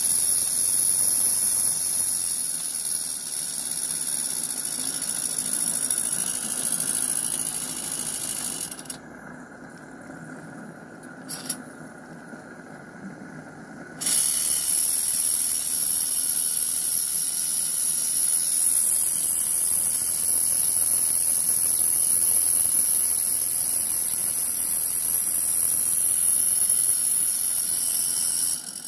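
Steady high hiss from a Regner tram power unit's gas-fired live-steam boiler. It cuts out suddenly for about five seconds near the middle and then comes back.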